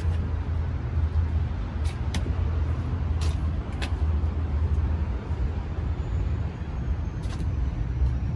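Mitsubishi Fuso FA truck's diesel engine idling with a steady low rumble, with a few short sharp clicks about two, three to four and seven seconds in.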